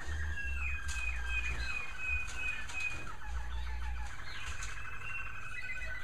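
Several American Singer canaries singing together: rolling trills and clear whistled notes overlapping throughout, with a low rumble underneath.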